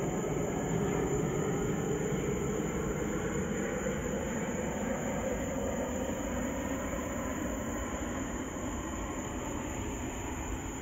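Rolling thunder from a summer storm: a long, low rumble that slowly fades, with a steady high-pitched tone above it.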